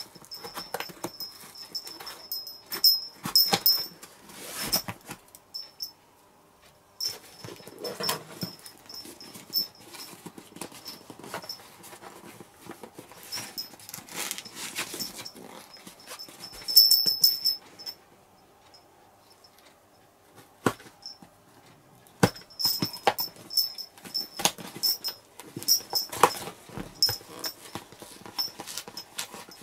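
Packing tape being cut with scissors and peeled off a cardboard shipping box. It comes in irregular spells of scraping and crinkling with sharp clicks, and there are a couple of short quiet pauses.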